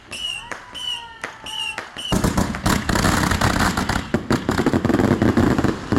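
Aerial fireworks: sharp bangs about every half second, each with a short high tone, then from about two seconds in a dense, continuous crackling barrage of many shells going off at once.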